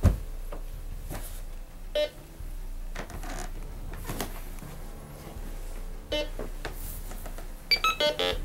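Handheld metal detector swept as a ghost detector: footsteps and handling knocks, then near the end a quick run of bright electronic beeps as it picks up a signal.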